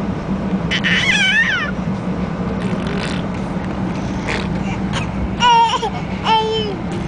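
Several short, high-pitched squealing calls that slide up and down in pitch, the loudest a little after halfway, over the steady low hum of a Shinkansen carriage.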